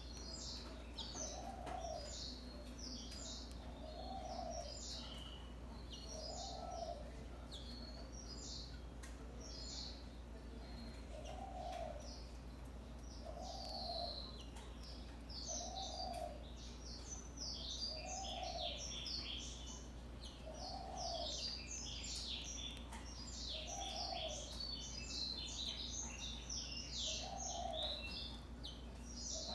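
European greenfinch chirping and twittering in short high calls, getting busier in the second half. Under it, a dove coos low about every two seconds, a dozen times.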